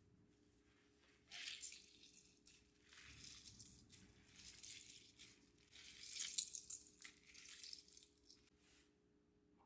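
Orange pith being squeezed by hand, a wet squishing with juice trickling and dripping into a glass bowl, in several squeezes, loudest a little past the middle.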